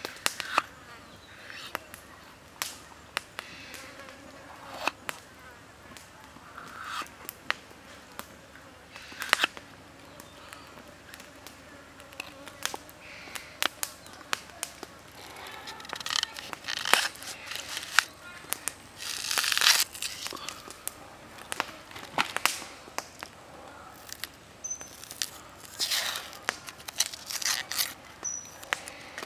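Large kitchen knife cutting a tomato and an onion on a wooden stump chopping block: irregular sharp taps of the blade on the wood and short cutting scrapes, busiest in the second half.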